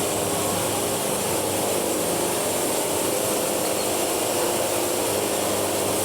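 Wood-Mizer portable band sawmill running steadily, its band blade cutting through a cant to take off a board, with the mill's engine humming underneath.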